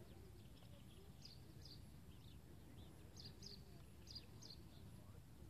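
Faint outdoor ambience: small birds chirping, short high calls that often come in pairs, over a low steady background rumble.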